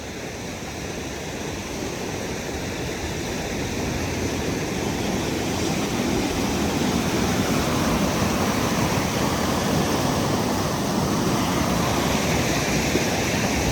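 Rushing creek water, a steady wash of noise that grows louder over the first several seconds and then holds level.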